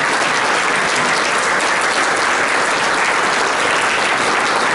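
Sustained applause from a roomful of people clapping, a dense, even patter of many hands welcoming the introduced guests.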